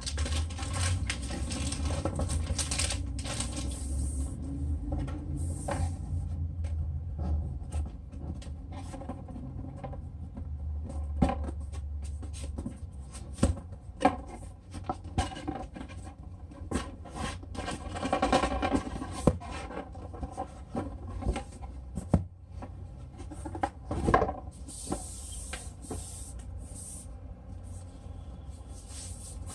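Unboxing handling noises: a plastic bag crinkling for the first few seconds, then cardboard boxes being lifted, set down and handled, with scattered knocks and taps, and a scraping hiss near the end.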